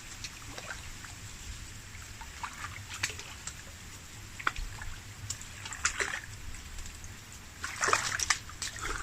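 Scattered small water splashes and drips, with a louder flurry of splashing about eight seconds in, from a small hooked fish being brought up out of the water.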